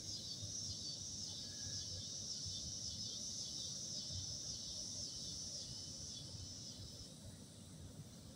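Steady high-pitched insect chorus, easing off a little near the end, over a faint low rumble.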